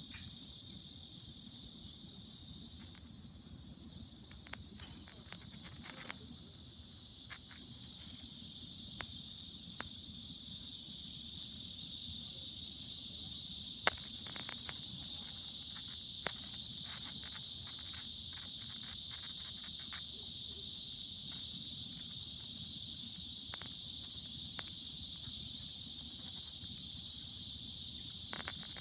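A steady, high-pitched insect drone that swells in level around the middle and then holds. Under it is a fluctuating low rumble of wind on the microphone, with a few faint scattered clicks.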